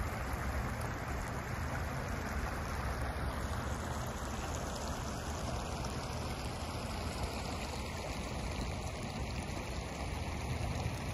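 Steady rushing of floodwater flowing across a flooded street, with a low rumble underneath.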